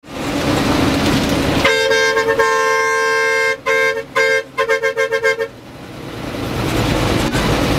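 Bus horn honking: one long blast of nearly two seconds, two shorter toots, then a quick string of about six short toots. The rumble of the bus's engine and road noise lies underneath and rises again once the horn stops.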